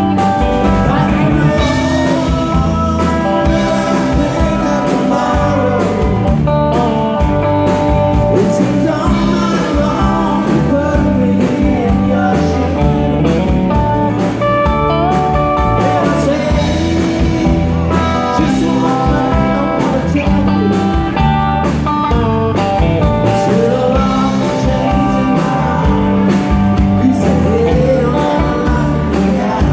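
Live band playing on electric guitars and drums, with a man singing over the music.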